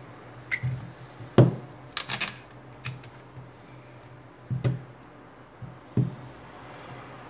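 Handling noise from a Xiaomi Mi 8 smartphone being turned over, pressed and set down on a silicone repair mat: a handful of separate sharp clicks and knocks, with a quick rattly cluster about two seconds in.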